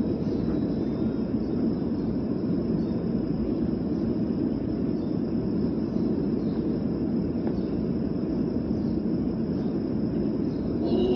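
Steady low rumbling room noise of a large, crowded mosque prayer hall, with no recitation: a silent stretch of the congregational prayer between the imam's recited passages.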